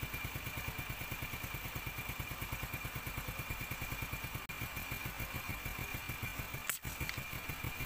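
An engine idling steadily with a quick, even thumping beat. A single brief click near the end.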